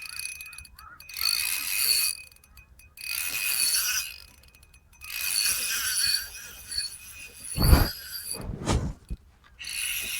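Spinning reel being cranked in three bursts of a few seconds each, its gears whirring as a lure is retrieved. Two low thumps near the end.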